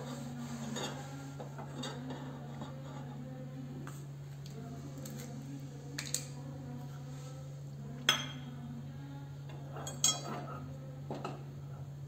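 Metal kitchenware clinking: a few sharp clinks with a short ring, the two loudest about eight and ten seconds in, over a steady low hum.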